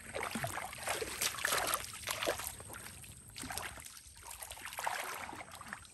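Shallow water splashing and sloshing in irregular strokes as feet wade through it over mud.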